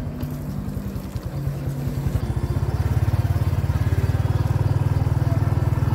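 Small engine running with a steady, low, even pulse, growing louder about two and a half seconds in and then holding steady.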